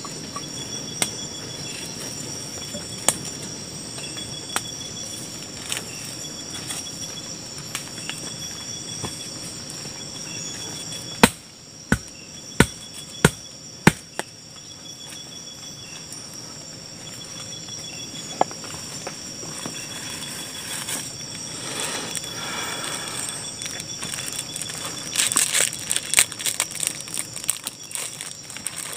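A kitchen knife cutting through long beans onto a wooden board: scattered sharp taps, then five loud chops in quick succession about halfway through. Crickets chirp steadily underneath, with one insect's chirp pulsing on and off, and there is crinkly rustling near the end.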